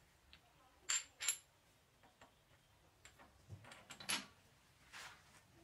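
Metal-on-metal clinks as a machined bushing is pushed onto the lathe's change-gear stud: two sharp clinks about a second in, a few light ticks, then another sharp clink around four seconds in.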